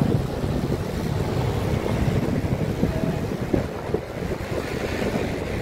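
Wind buffeting the microphone over the steady rumble of slow street traffic, cars and motorbikes.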